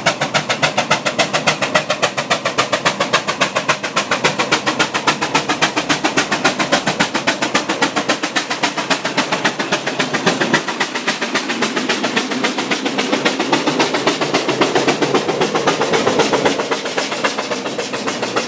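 Steam traction engine working hard uphill with a loaded trailer: a rapid, even chuffing from its exhaust beats, growing a little louder as it passes close by and easing off near the end.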